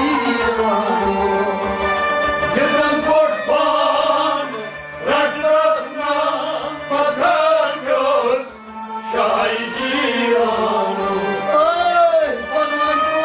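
Kashmiri Sufi kalam: a man's voice singing long, bending phrases over a harmonium that holds steady notes beneath him.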